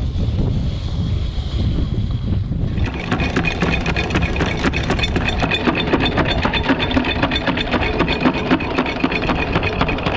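Wind buffeting, then about three seconds in a motor-driven deck machine starts up and runs with a rapid metallic clatter and a steady whine.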